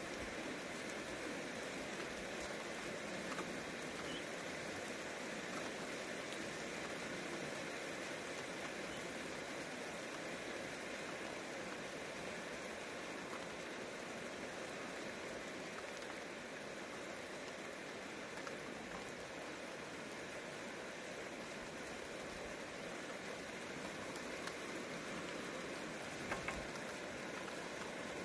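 Steady rain falling in a downpour, an even hiss, with a couple of brief low thuds near the end.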